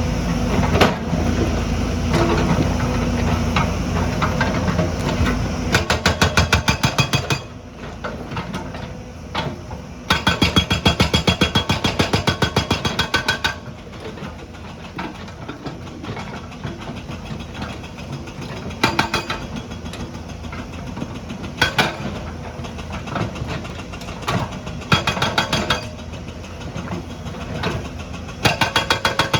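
Hydraulic stone breaker on a JCB hammering in bursts of rapid, evenly spaced blows: several short and longer bursts of a second or more, with the machine's diesel engine running throughout.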